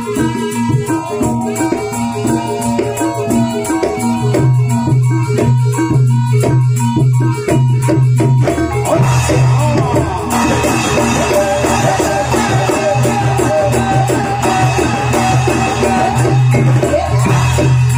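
Live traditional Javanese barongan music: a loud, fast percussion-driven ensemble with a steady low tone underneath. About nine seconds in, a higher wavering melody joins over the rhythm.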